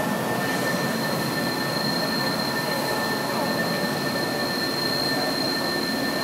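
Mori Seiki MV45 vertical machining centre running: a steady mechanical whir with two constant high whining tones over it.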